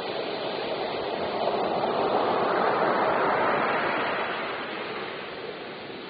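Ocean waves breaking on a beach. The rush of surf swells about a second and a half in and dies away near the end.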